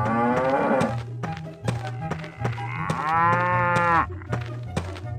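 Two cow moos, the second rising and falling in pitch, over children's background music with a steady beat.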